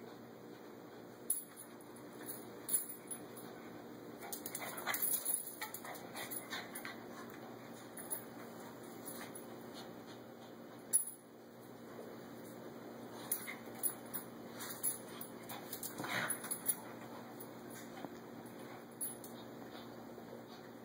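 A small dog and a cat play-fighting on a tile floor: scattered clicks and scuffles of paws and claws on the tiles, with the light jingle of the dog's collar.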